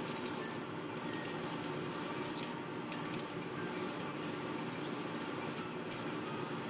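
Small paint-spraying rig in use for a white base coat: a motor, most likely the airbrush compressor, runs steadily, and short hissing bursts of spray come and go about three times.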